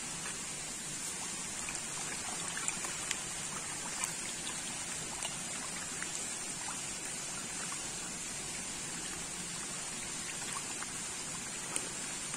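A dense shoal of Nile tilapia feeding at a pond's surface: a steady watery splashing hiss dotted with small irregular splashes and pops as the fish break the surface.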